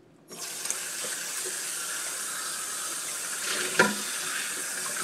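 Kitchen sink tap turned on a moment in, then water running steadily into the sink for washing dishes. A single sharp knock about four seconds in.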